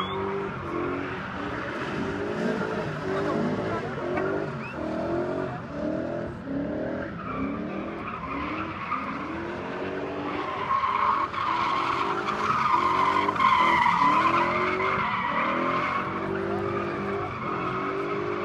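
A car drifting in tight circles: its engine revs up again and again in quick surges while the spinning tyres squeal. The tyre squeal grows loudest a little past the middle.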